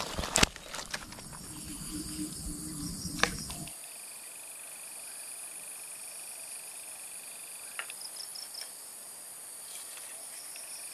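Steady chorus of insects giving a constant high buzz, joined a few seconds in by a second, lower steady trill. During the first few seconds there is low rumbling handling noise with a couple of sharp clicks, which stops abruptly.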